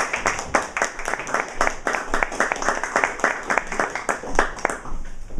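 A small audience applauding, the clapping dying away near the end.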